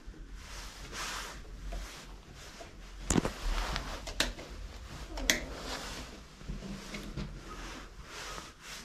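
Handling noises in a small room: rustling with three sharp clicks or knocks about a second apart near the middle, then lighter rustles.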